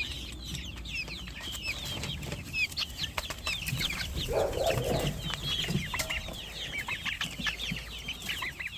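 A flock of chickens: many short, high, falling chirps overlapping throughout, with a few lower clucks about halfway through.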